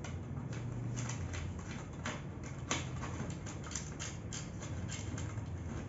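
Irregular clicking and light metallic clatter, several clicks a second with one sharper click near the middle, as the metal tilt mechanism is bolted onto the underside of an office chair seat.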